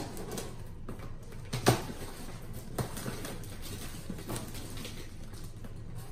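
Kitchen knife scraping and slicing at the packing tape on a cardboard box, with a few sharp scrapes and taps, the loudest about a second and a half in, and faint scratching as the tape is picked at.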